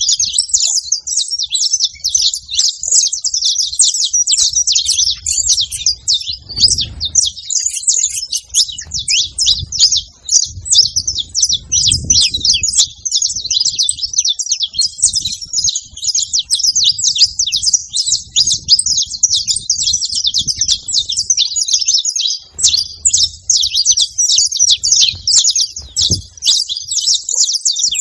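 Saffron finch chirping and singing without pause, a fast, dense stream of high, sharp notes.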